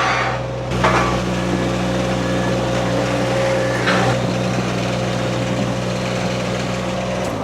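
Mini skid steer's engine running steadily under load, with two sharp clanks about one and four seconds in. The engine dies away right at the end.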